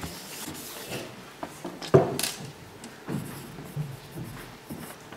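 Graphite pencil scratching on drawing paper as a portrait is shaded and then signed, with a single sharp tap about two seconds in.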